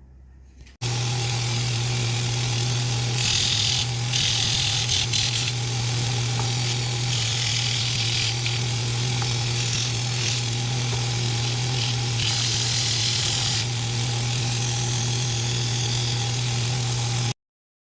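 Power sander running with a steady hum, with several stretches of louder hiss as the edges of a wooden cleaver handle are pressed against it to bevel them. It starts about a second in and cuts off suddenly near the end.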